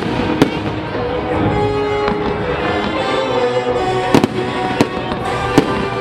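Aerial fireworks shells bursting: about five sharp bangs, the loudest a little past four seconds in, over steady background music with held notes.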